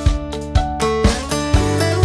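Background music: a strummed guitar over a steady beat, about two beats a second.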